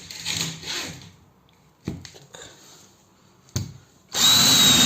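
Two short knocks, then about four seconds in a power drill starts and runs at full speed with a steady high whine, drilling into the hardboard-covered wooden floor to find a joist.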